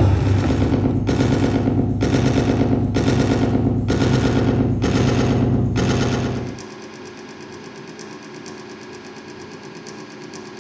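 Loud electronic performance music over a large sound system: a dense, rapidly stuttering pulse with heavy bass. About six and a half seconds in it drops abruptly to a much quieter texture of fast, fine clicks.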